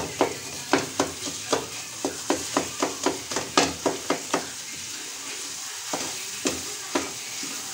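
Wooden spoon stirring carrot halwa frying in ghee in a metal pot, breaking up and mixing in khoya. Quick knocks and scrapes of the spoon against the pot come about three to four a second for the first four seconds, then only a few, over a steady sizzle.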